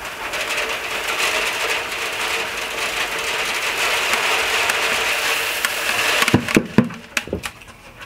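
Threshed wheat, chaff and seeds, poured from a bucket onto the top screen of a wooden screen sorter: a steady dry rushing hiss for about six seconds, then a few sharp knocks near the end.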